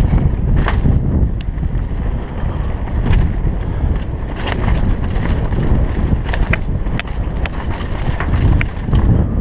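Wind buffeting a helmet-mounted camera's microphone as a downhill mountain bike runs fast over a dirt and rock trail, with scattered sharp clicks and rattles from the bike and tyres.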